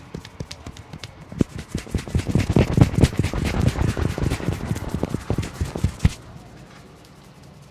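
Fast, percussive hand strikes of a head massage: the barber's hands tapping and slapping on the head, growing louder about two seconds in and stopping abruptly about six seconds in.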